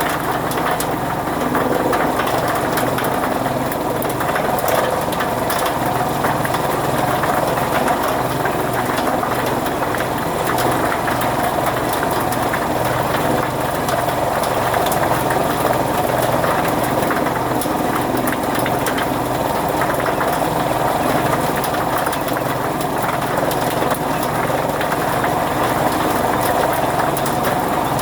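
Fodder chaff cutter running steadily under power, a continuous machine drone with a fast, even pulsing and many fine rattling clicks.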